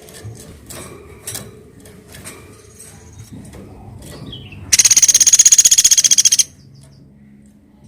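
Woodpecker giving a loud, fast, high-pitched rattling trill that lasts nearly two seconds, beginning about five seconds in. Faint scattered clicks and chirps come before it.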